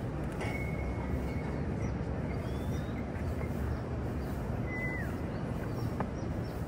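Steady low outdoor city rumble with a few short bird whistles over it: one held note near the start, a brief rising one in the middle, and a falling note about five seconds in.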